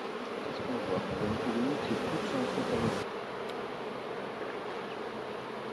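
Honeybees buzzing over an opened hive: a steady hum of the colony, with single bees flying close past in the first three seconds, their pitch wavering up and down.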